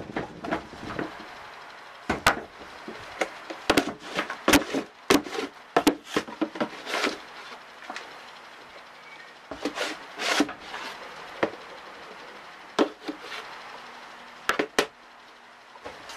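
Wooden block knocking and pressing down loose beetle-rearing substrate in a plastic case, along with a plastic scoop scraping through it. Irregular sharp knocks and scrapes come in bunches with short pauses between.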